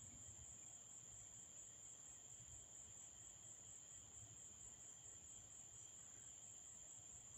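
Faint chorus of crickets at night: a steady, unbroken high-pitched trill.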